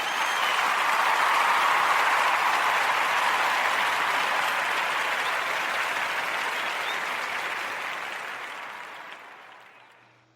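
A crowd applauding, a steady wash of clapping that holds for several seconds and then gradually fades out.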